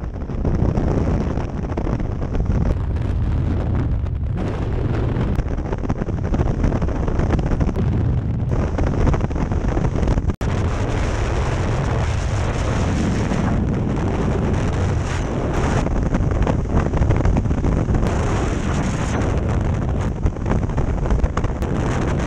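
Freefall wind blasting across an action camera's microphone: a loud, steady rush of buffeting air, heaviest in the low end, that cuts out for an instant about ten seconds in.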